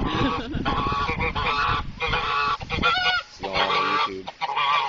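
White domestic geese honking repeatedly in loud, overlapping calls: agitated, aggressive honking aimed at the person nearby.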